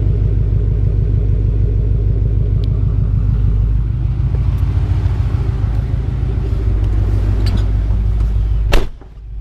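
Turbocharged 4.6-litre V8 of a 2007 Mustang GT idling steadily, heard at the exhaust through Borla Stinger axle-back mufflers. It carries a deep thump the owner hopes is only an exhaust leak and not engine knock. Near the end comes one sharp click, and the sound drops off suddenly.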